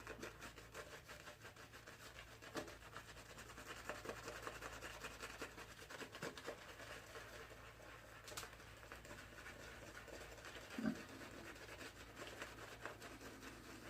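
Shaving brush working shave cream into a lather on the face: a faint, fast, bristly scratching and rubbing that goes on without a break.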